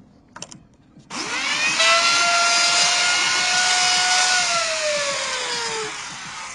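Electric trim router switched on about a second in, its motor whining up to speed and running steadily with a loud hiss as it works the wood. Near the end it is switched off and winds down with a falling whine.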